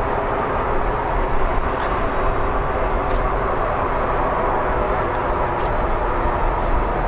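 Steady rushing, rumbling machinery noise from a large warship, the training ship JS Kashima, moving slowly past close by.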